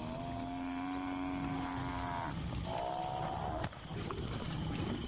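Cape buffalo bellowing: two drawn-out moaning calls, the first about two seconds long, the second shorter and higher, starting about two and a half seconds in.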